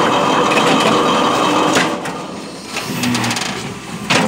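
Automatic fly ash brick machine's hydraulic press working: a loud, dense rattling until about two seconds in, then quieter as the press head lifts off the pressed bricks, and one sharp bang near the end.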